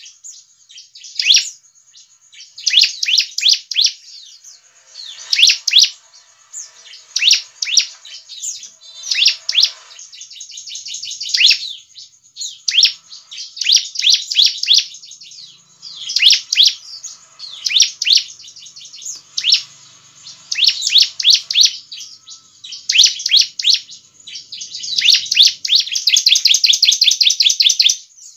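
Ciblek (bar-winged prinia) singing loudly in repeated short phrases of fast, high, falling notes, one about every second or two, ending in a longer unbroken rapid trill near the end.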